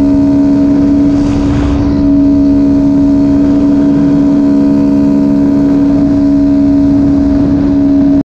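Honda Grom's 125 cc single-cylinder engine running steadily at high revs near its top speed, about 66 mph, with wind rushing past.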